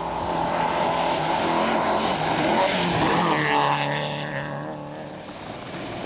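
A rally car at speed approaches and passes by. Its engine note swells and then drops in pitch as it goes past, about three to four seconds in.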